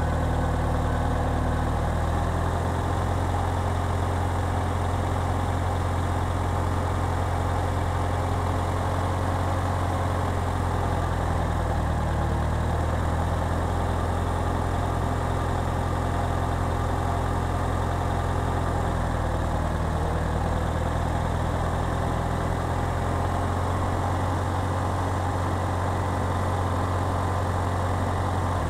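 Farmall Cub tractor's four-cylinder flathead engine running steadily at an even speed.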